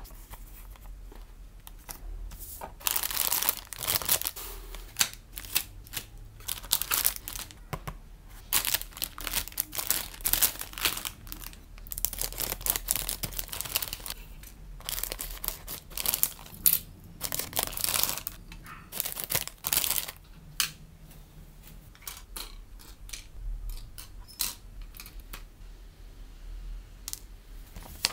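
Clear plastic bags around a model kit's plastic runners crinkling and rustling as they are handled and unpacked, in dense bursts that thin out over the last several seconds.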